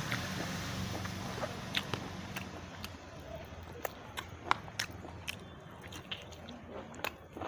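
A person eating chicken biryani: biting and chewing, with scattered sharp clicks.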